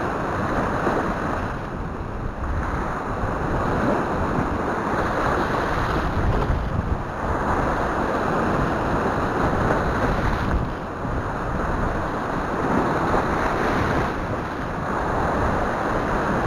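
Sea waves breaking and washing over shoreline rocks, swelling and easing about every four seconds, with wind buffeting the microphone.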